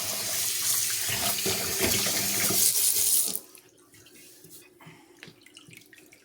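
Tap water running steadily as a puppy gets its final rinse in the sink, shut off abruptly a little over three seconds in, leaving faint drips.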